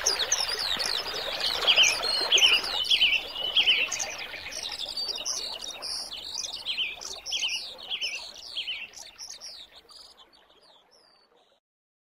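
Birdsong: many birds chirping and twittering together, fading out over the last few seconds. Under it, an even hiss stops abruptly about three seconds in.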